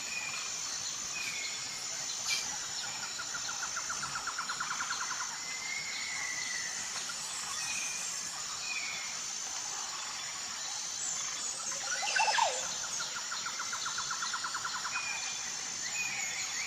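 Forest ambience of birds and insects: a steady high insect drone with short bird chirps repeating every second or two, bursts of fast trilling, and one louder call about twelve seconds in.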